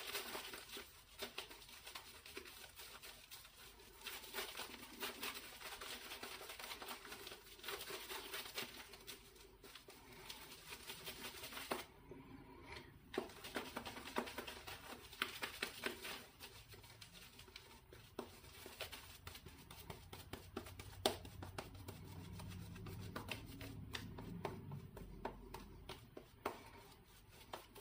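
Shaving brush working lather from shaving soap over a stubbled face: a faint, crackly swishing of wet bristles and foam, with a short pause about twelve seconds in.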